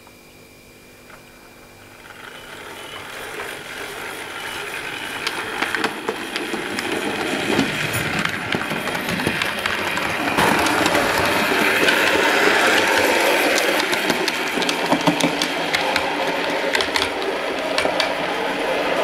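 Model railway train, the tank locomotive 5500 hauling milk tank wagons, running along the layout track: a steady motor-and-wheel rumble with many sharp clicks over the rail joints, growing louder from about two seconds in as it draws near and passes close, then staying loud.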